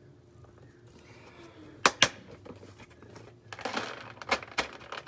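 Cat-treat packet being handled: two sharp clicks about two seconds in, then a stretch of crinkling with a few clicks near the end.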